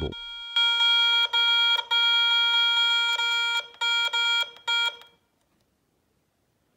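Garrett Ace 250 metal detector sounding a steady pitched tone that breaks on and off in uneven stretches, some short, one over a second long, then cuts off suddenly about five seconds in. These are erratic false signals from unstable sensitivity, which the repairer puts down to a faulty coil IC.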